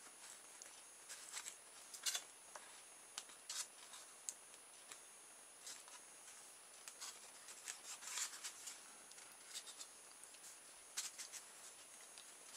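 Faint, irregular clicks, ticks and rubbing from hands handling small metal washers on a cut polystyrene foam tray.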